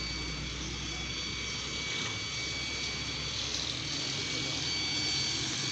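Steady mechanical drone and hiss with several faint, high-pitched whining tones held throughout; a low hum underneath drops away about two seconds in.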